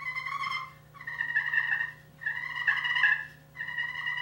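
Holland Custom Calls slate turkey call with a walnut pot, played with an Osage orange striker: a kee-kee run of about four drawn-out whistling notes, each close to a second long, imitating the call of a young turkey.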